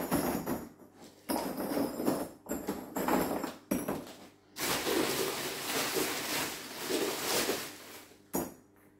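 Ceramic filter media tubes clinking and rattling against each other as they are laid by hand into a Bakki shower tray, in several bouts of clatter with short pauses between.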